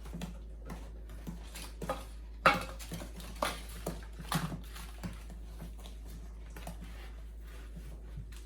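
Spoon or whisk scraping and clinking against a mixing bowl as wet cookie-dough ingredients are stirred, with other kitchen utensils knocking about. The knocks come irregularly, the loudest about two and a half seconds in.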